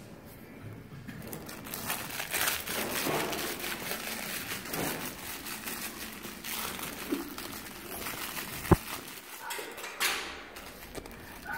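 Rustling and crinkling of blankets and a plush toy as puppies are handled and played with, full of small scratchy clicks. One sharp knock, the loudest sound, comes about three-quarters of the way in.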